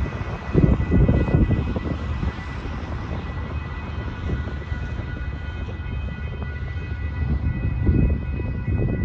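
Railroad crossing warning bells ringing steadily as the crossing is activated, over a low rumble that swells about a second in and again near the end.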